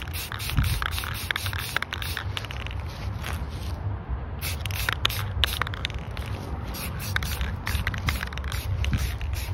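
Aerosol can of Rust-Oleum High Gloss spray paint hissing in repeated short bursts, with a brief pause about four seconds in, over a steady low rumble.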